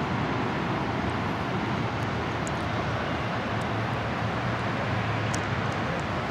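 Steady outdoor background noise: a constant hiss and rumble, with a few faint high clicks.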